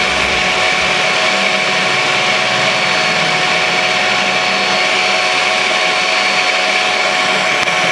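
Kenwood electric hand mixer running at a steady speed, its beaters whirring through a frothy mixture in a bowl: an even motor whine.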